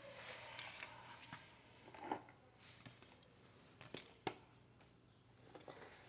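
Near silence with a faint low hum and a few faint, scattered clicks and taps of something being handled.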